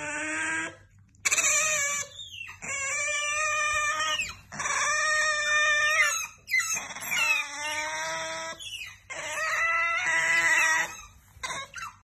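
Pet Asian small-clawed otter calling: a string of about six long, high-pitched calls, each lasting a second or two, with short breaks between them.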